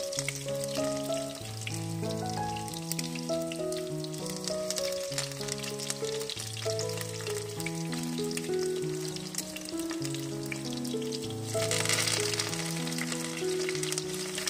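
Oil sizzling and crackling steadily around rolls of wild betel leaf (lá lốt) shallow-frying in a pan, with background music playing. About twelve seconds in the sizzle grows louder, as another roll is laid into the hot oil.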